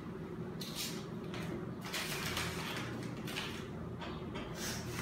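Hands handling materials on a table: several short bursts of rustling and scraping, over a steady low hum.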